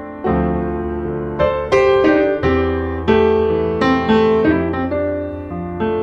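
Background piano music: a slow, gentle melody of single notes and chords, each struck and left to ring.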